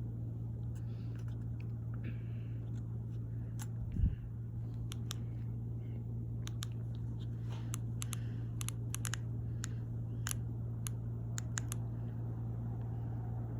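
Fanimation Blitz DC-motor ceiling fan running steadily with a low hum, with scattered light clicks and one dull thump about four seconds in.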